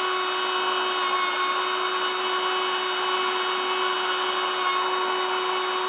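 Homemade hair dryer (a small motor-driven fan in a tube) running steadily, blowing air up out of the tube: an even hum with a rush of air.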